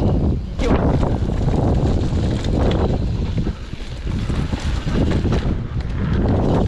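Mountain bike descending a dirt trail covered in dry leaves: heavy wind buffeting on the microphone, with the rumble and crackle of the tyres rolling over leaves and dirt and the bike rattling over the bumps. It eases briefly about halfway through.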